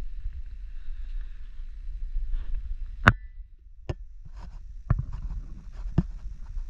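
A steady low rumble with a handful of sharp clicks, the loudest about three seconds in, followed by a brief high tone; three more come at roughly one-second intervals after it.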